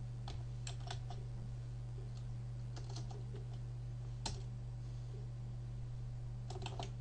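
Computer keyboard being typed on in short bursts of key clicks, the loudest single keystroke a little past four seconds in, over a steady low electrical hum.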